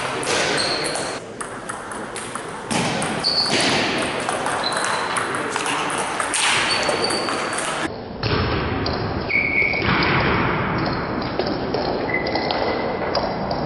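Table tennis ball clicking back and forth between rubber-covered paddles and the table in a rally, some hits leaving a short ringing ping.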